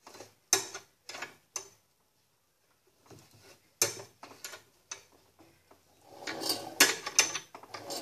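Long wrench clicking and knocking inside the hollow agitator of a top-load washing machine as the agitator's retaining bolt is screwed down: a few separate clicks, then a denser spell of clicking and rattling about six seconds in.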